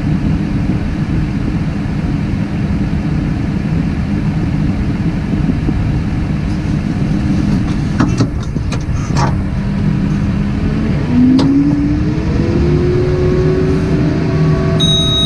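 Tractor engine running steadily, then revving up from about eleven seconds in with a rising note. There are a few sharp clicks in the middle, and a short high-pitched beep from the tractor's gearbox warning near the end.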